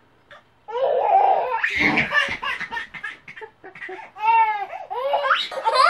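Baby laughing in two long, high-pitched runs, the first starting about a second in and the second near the end.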